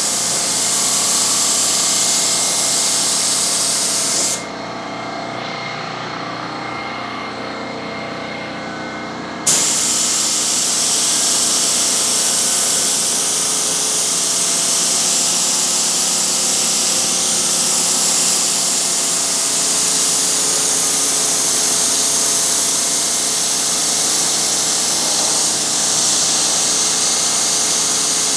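Paint spray gun hissing steadily over a steady machine hum. The hiss stops about four seconds in and starts again sharply about five seconds later, as the trigger is released and pulled again between passes.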